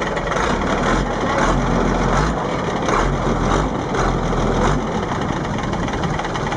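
Longtail boat's automotive-type engine running steadily under way, with a dense noise of wind and water; a low rumble comes and goes between about one and five seconds in.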